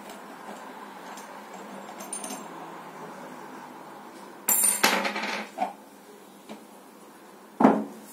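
Steel parts of an adjustable plate-loaded kettlebell clinking as it is taken apart: a loud metallic clatter with ringing about halfway through, then a heavy knock near the end as a part is set down on the tiles.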